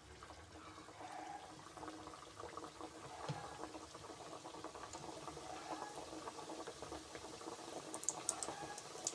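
Mandazi dough deep-frying in hot oil, bubbling and crackling steadily, with a few sharp ticks near the end.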